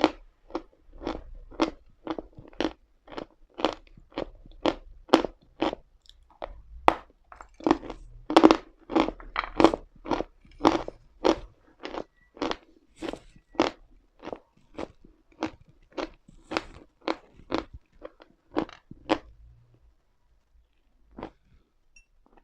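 Chalk being chewed, with crisp crunching at a steady rhythm of about two chews a second, which stops about nineteen seconds in; a faint click or two follows.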